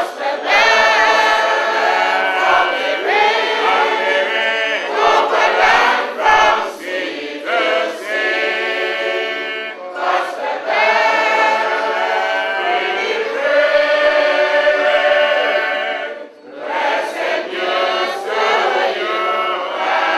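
A congregation of men and women singing a hymn together, with a short break between lines late on.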